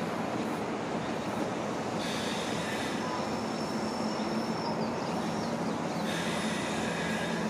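A JR 201 series electric multiple unit approaching and slowing into a station. It makes steady rail running noise, with thin high-pitched tones that come in about two seconds in and again near the end.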